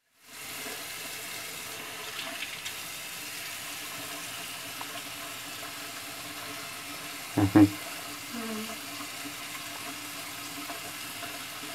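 Bathroom sink faucet running steadily, its stream splashing into the basin. About seven and a half seconds in there is a brief louder sound in two quick pulses.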